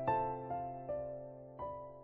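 Background music: a slow, gentle melody of struck keyboard notes, about four in two seconds, each fading away after it sounds.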